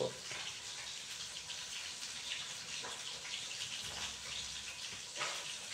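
Fish (espada, cutlassfish) frying in oil: a steady crackling sizzle. Over it a fork tosses vinegar-dressed vegetables on a ceramic plate, with a few light clinks and scrapes.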